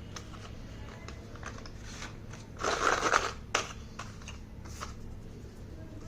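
Slate pencil parcel packaging being handled and opened: soft taps and rustles, with a louder crinkling burst lasting about half a second about three seconds in, then a sharp click.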